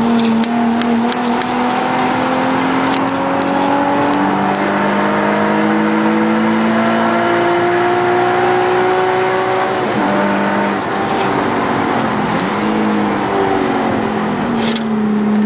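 Nissan 350Z's 3.5-litre V6 with a custom exhaust, driven hard on track. The engine note climbs steadily for about ten seconds, then the revs drop and waver, over steady wind and road noise.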